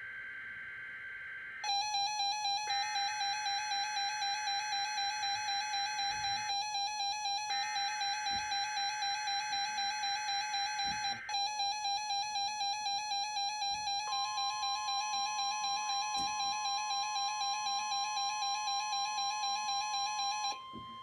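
Weather radio alert alarm beeping in rapid, loud pulses for most of the stretch, set off by a NOAA Weather Radio Required Weekly Test. Under it, the broadcast's buzzy two-tone SAME digital header plays in three bursts with short gaps, and a steady alert tone joins about two-thirds of the way through.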